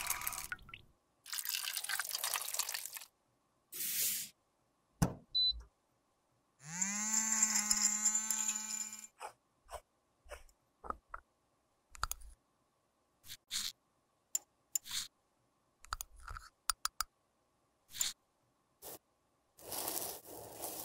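Tap water running over a metal makeup pan at the start. About a third of the way in, a small electric grinder whirs up to speed, rising in pitch, and runs steadily for about two and a half seconds, grinding makeup powder. Scattered short taps and scrapes follow, with a metal spatula scraping and pressing crumbled powder into the pan near the end.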